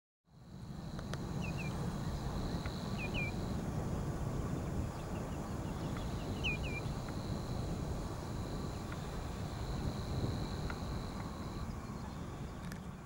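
Steady low rumble with a faint, steady high-pitched tone above it. A bird gives short paired chirps three times in the first seven seconds.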